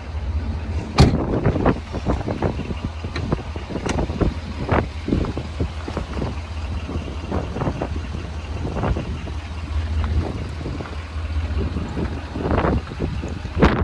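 Ford F-350's 6.7-litre Power Stroke V8 diesel idling steadily shortly after a cold start, with irregular gusts of wind buffeting the microphone.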